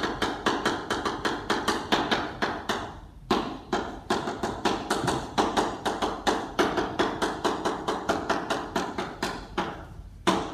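Chalk tapping and scraping on a blackboard as a line of characters is written: a quick run of short sharp taps, about four or five a second, with a brief pause about three seconds in.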